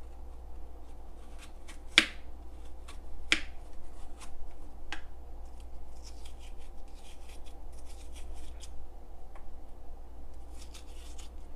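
Hands handling things at a kitchen counter: two sharp clicks about two and three and a half seconds in, a few lighter taps, then soft rubbing and rustling through the second half. A low steady hum runs underneath.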